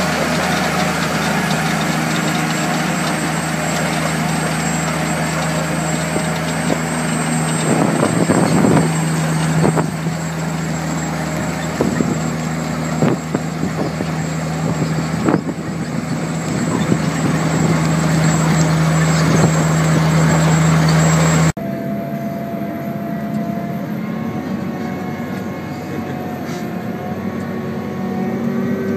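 Grimme Varitron 270 self-propelled potato harvester's diesel engine running steadily under load, with scattered knocks and clatter from the machine for a few seconds before the middle. About three-quarters of the way through, the sound cuts abruptly to a quieter engine drone with different tones.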